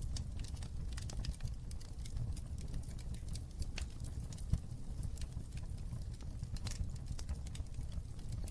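Wood fire crackling in a fireplace: irregular sharp snaps and pops over a low steady rumble, with one louder pop about four and a half seconds in.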